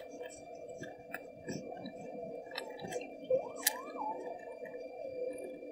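Rustling and small sharp clicks from gloved hands handling a circuit board and its wires, over a faint steady hum.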